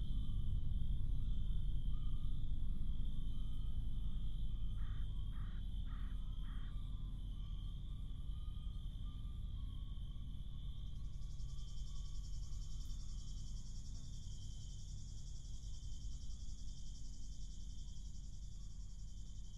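Cicadas buzzing steadily, with a second, higher-pitched cicada chorus joining about halfway through. Four short chirps come about five seconds in, over a steady low outdoor rumble.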